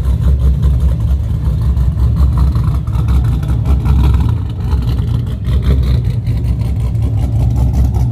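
Pontiac Firebird's engine running at low speed as the car creeps past, a loud, deep exhaust rumble that pulses unevenly.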